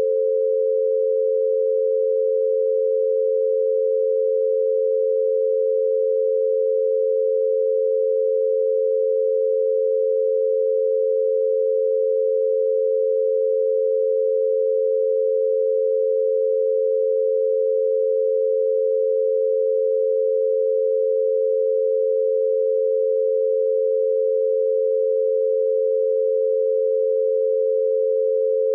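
Two steady pure sine tones a little below and above 500 Hz, held unchanged: an 88 Hz binaural beat meant for headphones, one tone to each ear.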